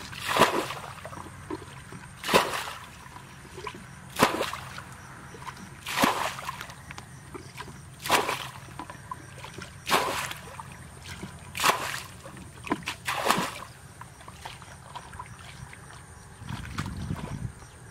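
Water splashing as a green plastic bucket scoops and tosses water out of a shallow muddy ditch, one splash about every two seconds, stopping shortly before the end; a duller, lower noise follows near the end.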